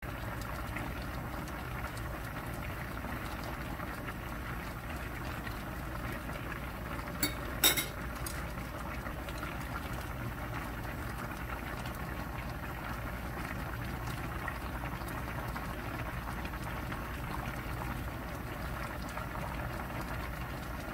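Spicy braised chicken stew (dakbokkeumtang) bubbling at a steady boil in a wide pan, with two short sharp clinks about seven and a half seconds in as the metal spoon is set down.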